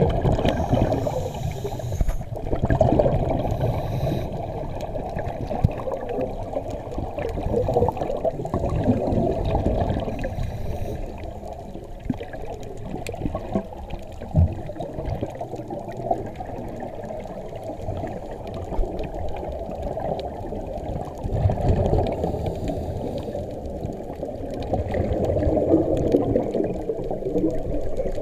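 Underwater bubbling and water rush from scuba divers' regulator exhaust, heard muffled through a waterproof camera housing, swelling and fading in irregular surges every few seconds.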